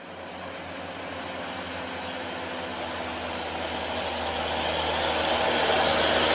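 Diesel truck engine running steadily as a Hino dump truck comes round the bend and closes in, growing louder throughout.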